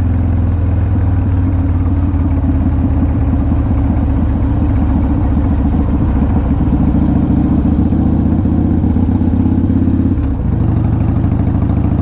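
Harley-Davidson CVO Wide Glide's V-twin engine running steadily under way, with a brief dip in the engine note about ten seconds in.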